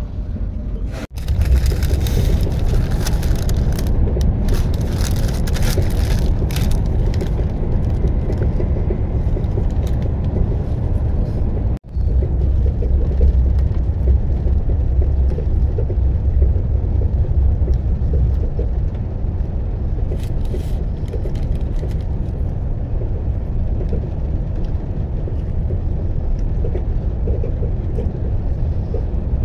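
EuroCity passenger train running at speed: a steady low rumble of the wheels on the track. A rushing hiss rides over it for the first several seconds. The sound drops out abruptly for a split second twice, about a second in and about twelve seconds in.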